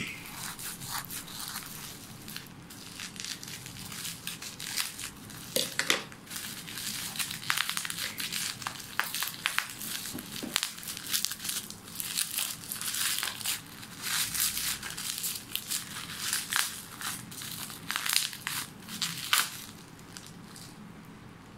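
Plastic protective wrapping being cut with scissors, then pulled apart and crumpled by hand: dense, irregular crinkling and crackling that thins out near the end.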